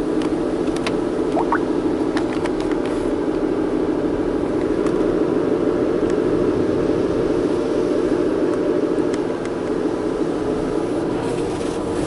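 Automatic car wash equipment working over the car, heard from inside the cabin: a loud, steady rushing with scattered light ticks and clicks.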